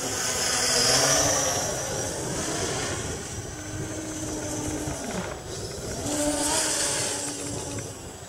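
Electric motors and propellers of a V-tail quadcopter buzzing steadily in flight. The pitch shifts as the throttle changes and drops about five seconds in, and it grows louder around one second in and again about six seconds in.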